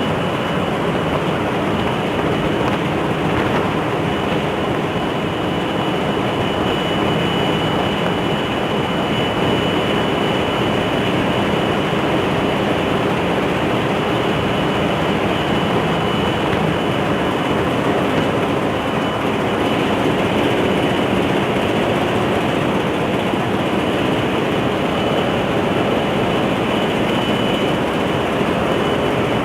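Ship's engine-room machinery running steadily, a loud unbroken noise with a thin steady high whine.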